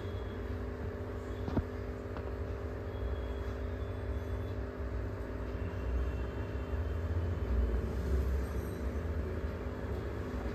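Steady hum of an aquarium filter motor with a low rumble underneath, and a single small click about one and a half seconds in.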